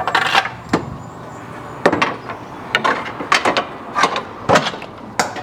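Heavy metal clunks and knocks, about seven spread irregularly, as the cut-loose rear suspension assembly of a car is handled and set down on the shop floor.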